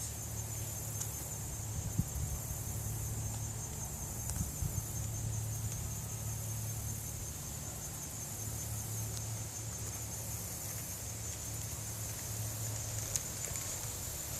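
Steady, high-pitched chorus of insects trilling without a break, over a steady low hum, with a few faint clicks.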